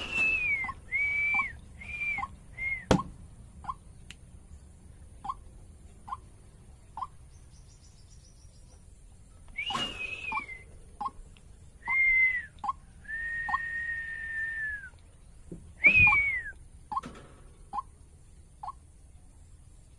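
Caged white-breasted waterhen calling: bouts of clear whistled notes, several falling in pitch at the end and one held for about two seconds, with short lower notes repeating about once a second throughout. Two sharp knocks, near the start and about three quarters through.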